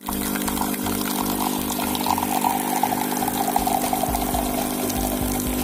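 Espresso machine pump humming steadily while espresso streams from the spouts into a cup.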